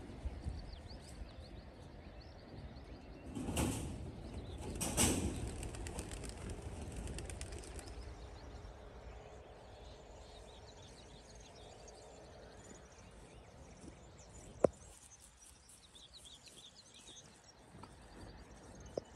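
A large flock of birds in flight: the rush of many wings swells twice, about three and a half and five seconds in, then fades as the flock moves away. Faint chirps come near the end, and there is a single sharp click about fourteen seconds in.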